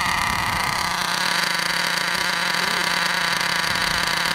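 Nitro glow engine of a Traxxas Revo RC monster truck running at a steady high-pitched buzz.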